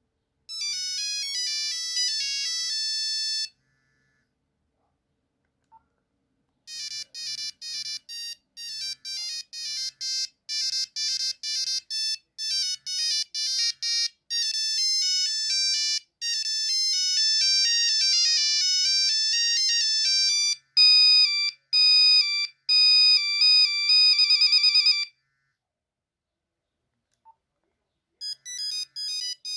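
Nokia 3310 ringtones playing as beeping tunes of single notes. One short tune ends about three seconds in; after a pause a long, fast melody runs for about eighteen seconds and closes with a few loud repeated notes; after another pause the next tune starts near the end.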